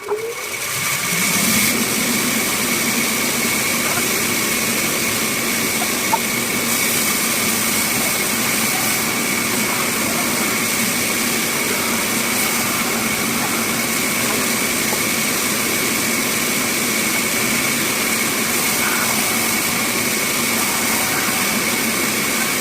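Bandsaw running: it picks up speed over the first second or so, then runs steadily with a continuous high whine. A single sharp click comes about six seconds in.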